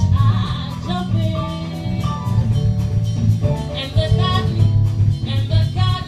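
Live jazz band playing, with a walking bass line, drum kit and a melody on top.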